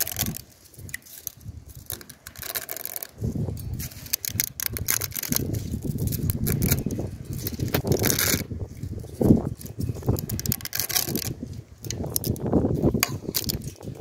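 Metal spatula scraping and clinking against a stainless steel pot while stirring stiff, dry spaghetti down into the cooking liquid, with many quick irregular taps and clicks.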